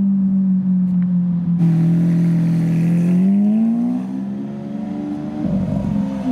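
Lamborghini Aventador's V12 engine running as the car drives up the street. Its note dips slightly, rises briefly around three seconds in as it is given some throttle, and eases off again near the end.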